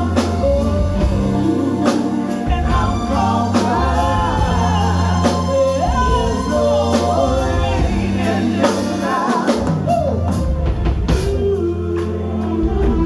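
Live band playing a soul/R&B song: a singer's voice over a bass line and a drum kit keeping a steady beat.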